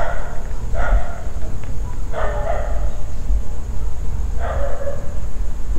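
Dog barking: four single barks one to two seconds apart, over a low steady rumble.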